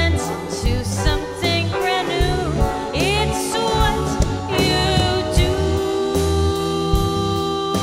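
A live band playing a song: a woman sings lead over drums with cymbals and bass guitar.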